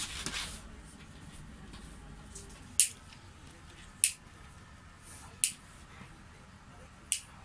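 A brief scuffle of paws on the floor as a dog and cat tussle, then four sharp clicks spaced about one and a half seconds apart.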